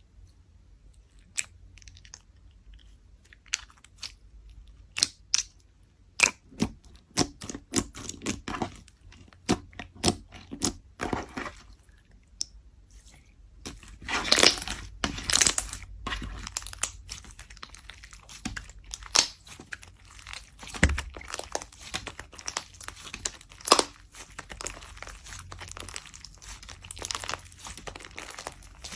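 Slime being worked by hand, giving a run of sharp crackling, crunching pops. The pops are sparse at first and come thicker from about six seconds in.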